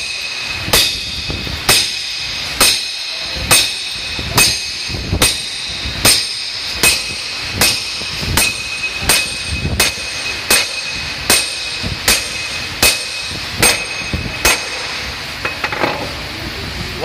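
Steady metal-on-metal hammer blows, a little more than one a second, on a steel driver seated on a cylinder liner, driving the sleeve into a bore of a Toyota 22R four-cylinder engine block. Each blow rings. The blows stop about three-quarters of the way through.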